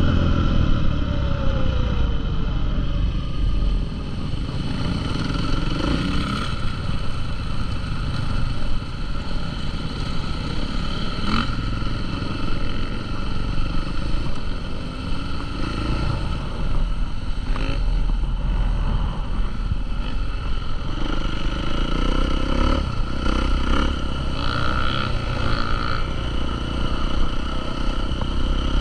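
Motocross dirt bike engines revving, their pitch rising and falling again and again.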